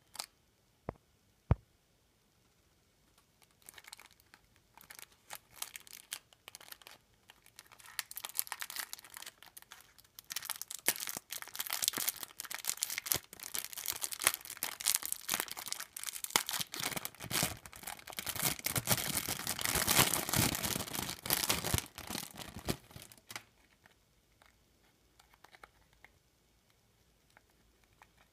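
Clear cellophane wrapper crinkling and tearing as it is peeled off a small cardboard gum-pack prank toy. The crackling builds from about four seconds in, is loudest shortly before it stops, and ends about twenty-three seconds in, after a couple of light taps at the start.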